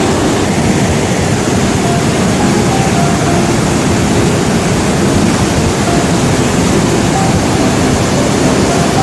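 Flash-flood torrent: a steady, loud rush of floodwater and mudflow churning down the valley.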